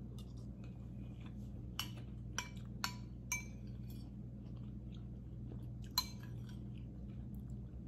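Metal spoon clinking against a ceramic soup bowl: five short, ringing taps, four close together in the first half and one more near the end, with quiet chewing in between. A steady low hum runs underneath.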